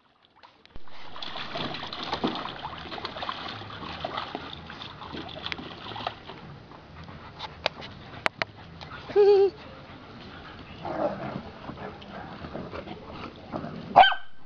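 Dog splashing through the water of a shallow plastic kiddie pool for the first several seconds, then dogs play-fighting, with a short wavering whine about nine seconds in and a sharp bark near the end.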